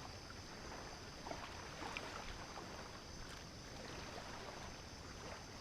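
Steady wash of surf on a beach, with a few faint clicks and rustles and a constant high hiss.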